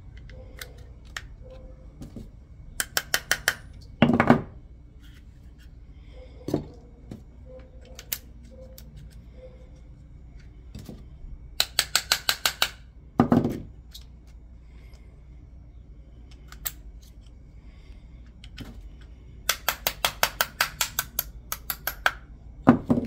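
Three runs of quick light metallic taps, about eight a second, each ended by one heavier knock, from hand work on a Glock G19 Gen3 pistol's trigger parts.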